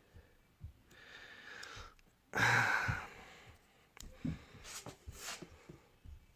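A man's heavy exhale, like a sigh, about two seconds in, with quieter breaths and a few faint handling knocks around it.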